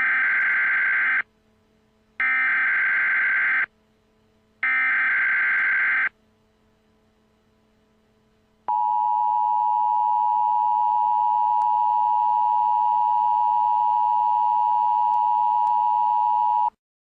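Emergency Alert System signal: three short bursts of buzzing SAME header data, each about a second and a half long with a second's gap between them, then the steady two-tone attention signal for about eight seconds, cutting off abruptly.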